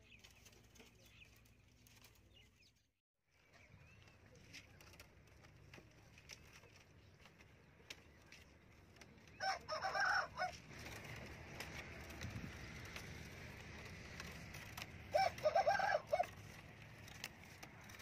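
A rooster crowing twice, about six seconds apart, each crow lasting about a second and much louder than the faint background.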